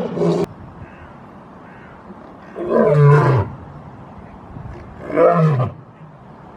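Lion roaring: a call that cuts off sharply about half a second in, then two loud roars about two and a half seconds apart, each dropping in pitch at its end.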